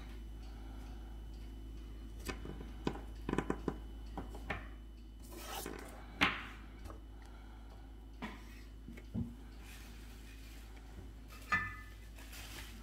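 Small clicks and taps of pre-painted tabletop miniatures being handled and set down on a tabletop, with a couple of soft rustles, one near the end. A steady low hum runs underneath.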